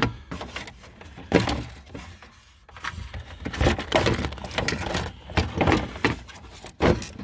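Hard plastic passenger airbag cover of a Jeep Cherokee XJ dash being slid and pried out of its mounting: an irregular string of plastic knocks, creaks and scrapes, the sharpest about a second and a half in.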